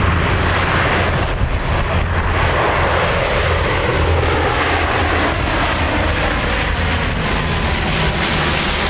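A de Havilland Canada Dash 7's four Pratt & Whitney PT6A turboprops and propellers droning steadily as the airliner flies low overhead with its gear down. The engine tones drop slightly in pitch in the second half as it passes.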